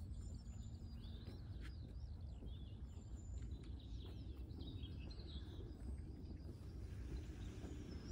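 Small birds chirping and twittering in quick, wavering high notes, mostly in the first five seconds, over a steady low background rumble.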